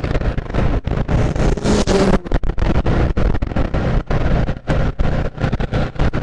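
Motorcycle engine running at road speed with wind buffeting the microphone, the sound choppy and broken up in gusts.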